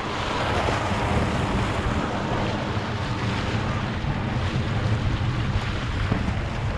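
Wind buffeting the microphone over small waves splashing and washing against shoreline rocks, a steady rushing noise with no single standout event.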